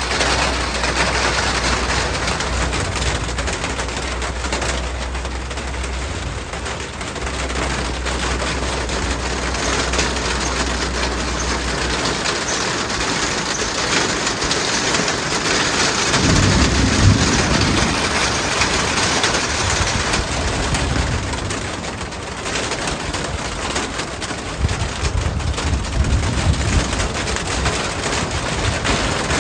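Steady hiss of rain and wind from an approaching severe thunderstorm, with low rumbles about halfway through and again near the end.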